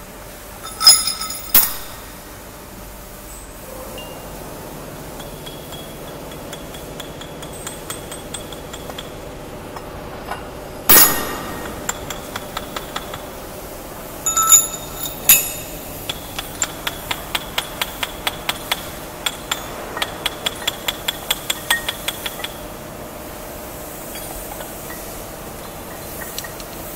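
Steel rollers and spacer bushes clinking and ringing against each other and the steel shafts as they are handled during roll forming machine assembly. The loudest clinks come about a second in, around eleven seconds and at about fourteen and fifteen seconds. A run of quick light metallic taps, about three a second, follows for some six seconds over a steady workshop hum.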